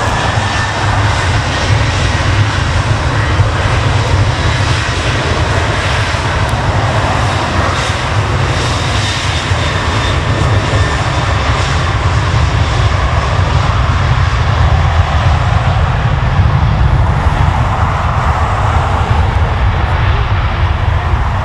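Jet airliner's engines, loud and steady: a deep rumble with a faint high whine over it.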